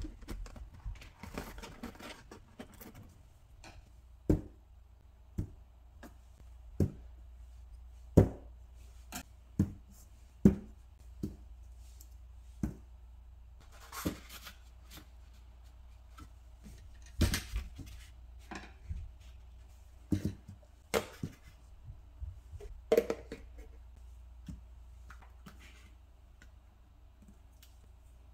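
Glass spice jars, plastic containers and dishes being set down one after another in a kitchen drawer: irregular sharp knocks and clinks, some twenty in all, over a faint steady low hum.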